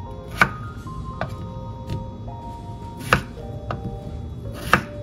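A few slow, uneven knife strokes on a cutting board, three of them sharp and loud, over soft background music with held notes.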